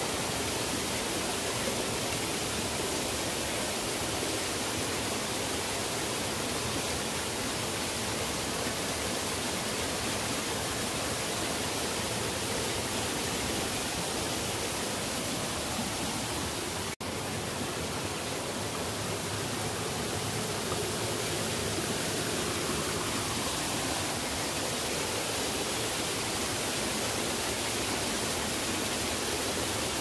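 Waterfall pouring close to the microphone: a loud, steady rush of falling and splashing water. It cuts out for an instant a little past halfway.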